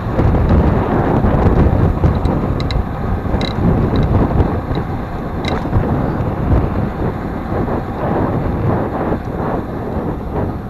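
Wind buffeting the microphone of a camera on a moving road bike, mixed with the rumble of the tyres on rough asphalt. A few faint, short ticks come through in the middle.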